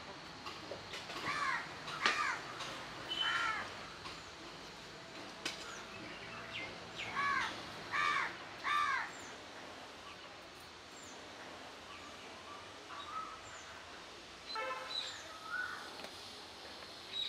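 Crows cawing outdoors: two harsh caws about a second in, another near three and a half seconds, then three caws in a row around seven to nine seconds in, with small birds chirping faintly.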